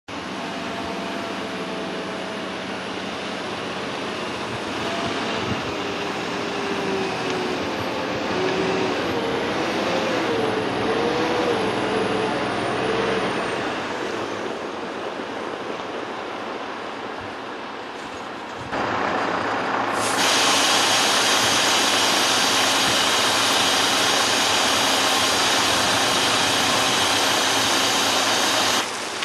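MAN truck's diesel engine running as the tractor unit drives a loaded tipper semi-trailer over gravel. About 19 s in, a louder steady rushing noise takes over and stops suddenly near the end.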